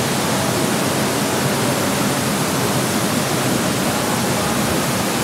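Steady rushing of water churning and pouring into indoor spa pools from jets and cascades.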